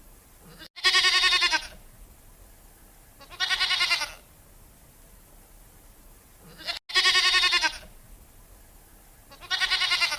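A goat bleating four times, each bleat a quavering call just under a second long.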